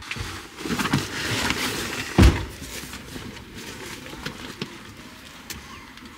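Handling noise: wool clothing rubbing against a handheld camera and its microphone, with one sharp knock about two seconds in, then quieter scuffs and clicks.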